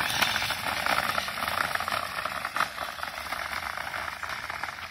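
Steady gritty crunching hiss of gravel on a dirt road, made up of many small ticks with no motor tone standing out.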